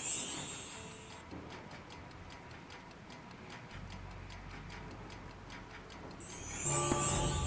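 Clock-ticking sound effect, faint and evenly paced, between two high shimmering swoosh effects; the second swoosh, about six seconds in, brings in steady held music tones.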